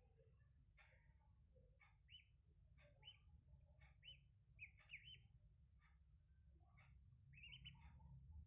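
Ducklings peeping softly: a scattering of short chirps, more of them in the middle and again near the end, over faint clicks and a low steady hum.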